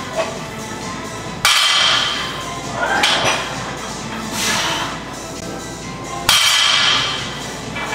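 Iron plates of a loaded 235 lb barbell clanking down on a rubber gym floor between deadlift reps, twice, about five seconds apart, each clank ringing briefly. Music plays underneath.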